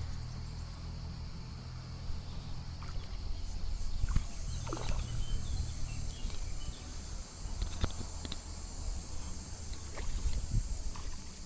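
Wind rumbling and buffeting on the microphone, over a steady high hiss, with a few light clicks and swishes as fly line is stripped in by hand.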